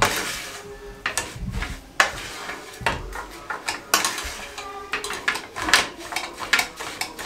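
Wooden spatula stirring and mixing mashed potato in a non-stick frying pan, with irregular knocks and scrapes against the pan.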